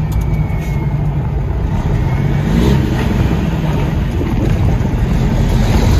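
Heavy truck's diesel engine running with tyre and road noise, heard from inside the cab while driving: a steady low rumble.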